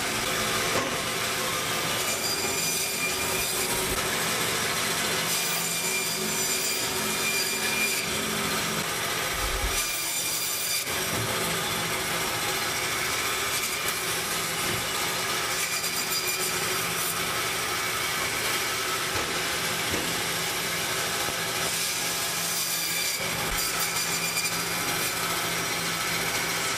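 Meat band saw running steadily with a constant motor hum, its blade cutting a lamb carcass into rib racks and chops.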